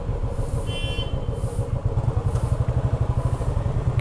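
Royal Enfield single-cylinder motorcycle engine idling with a steady low beat. A short high-pitched tone sounds briefly about a second in.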